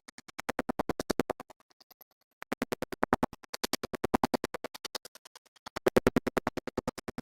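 Background music with a fast, even chopping pulse of about eight beats a second, swelling and fading, with a brief drop-out about two seconds in.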